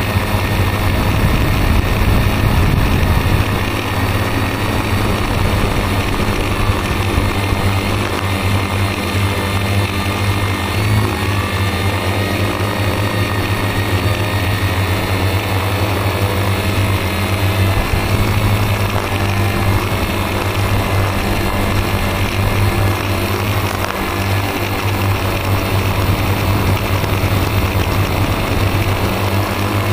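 Multirotor drone's electric motors and propellers running, heard from the camera on board as a steady hum of several tones whose pitch shifts slightly now and then as it flies.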